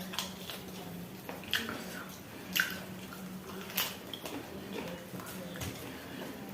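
Close-up eating sounds of goat meat curry and dhido: wet chewing and mouth smacking, with three sharp clicks of dish or utensil about a second apart. A faint steady hum runs underneath.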